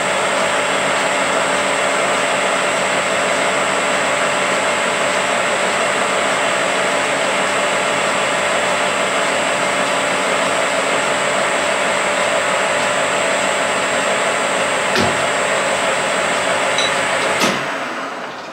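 Metal lathe running steadily with a bronze tube spinning in the chuck: a loud, even whir with a high whine. There is a click about 15 s in and another near the end, after which the lathe winds down.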